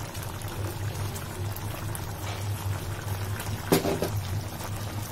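Thick paneer curry simmering in a pan as fresh cream is poured in from a carton, over a steady low hum. A single sharp knock sounds about three and a half seconds in.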